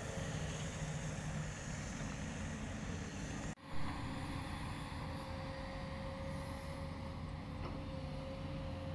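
Steady low drone of a working diesel excavator engine, with a short drop-out and a bump a little over a third of the way in.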